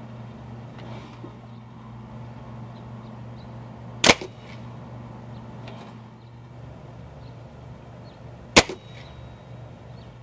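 A Crosman Phantom 1000X .177 break-barrel spring-piston air rifle fires twice, about four and a half seconds apart, each shot a sharp crack with a short ring. A steady low hum runs underneath.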